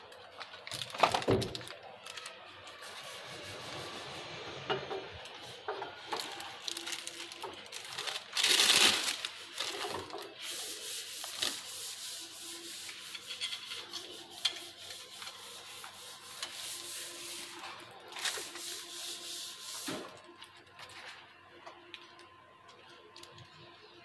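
Rubbing and rustling with scattered clicks and knocks as hands handle a plastic-wrapped metal door pull handle against a wooden door. Near the start there is the rubbing of the camera against clothing, and there are louder rustling bursts near the middle and again later on.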